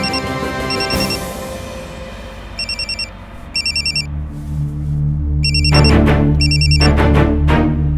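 Mobile phone ringing with an electronic ringtone in repeated short bursts of rapid trilling beeps, over dramatic background music that swells in the second half.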